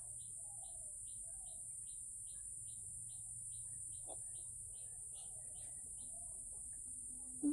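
A faint high chirp repeating evenly, nearly three times a second, over a steady background hiss and hum; the chirping stops about six seconds in. A soft tap comes about four seconds in, and a short, sharper knock right at the end.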